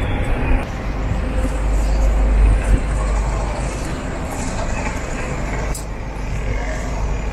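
City street traffic: cars and buses passing, a steady low rumble that swells to its loudest about two to three seconds in.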